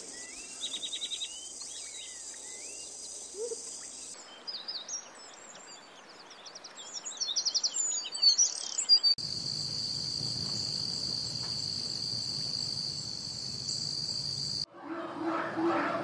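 Nature ambience that changes abruptly several times. It opens with a steady high insect chorus and small birds chirping and twittering; the chirps are busiest and loudest about eight seconds in. From about nine seconds a steady shrill insect drone takes over, then cuts off suddenly near the end, where a lower, pulsing sound begins.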